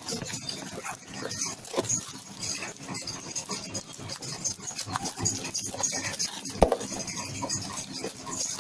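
Scraping, scratching and rustling of a cardboard parcel as its packing tape is cut, with one sharp knock about two-thirds of the way through.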